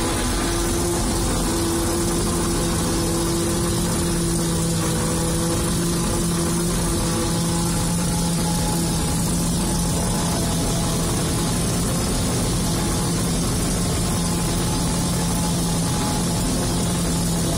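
Fortschritt E-281 self-propelled forage harvester running steadily while chopping maize, heard from inside the cab: a constant machine drone with a steady hum.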